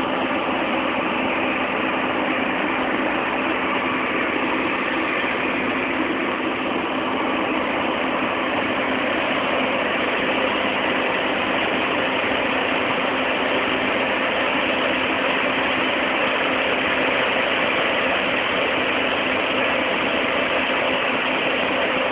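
Engines running steadily: a constant hum with an even hiss over it, unchanging throughout.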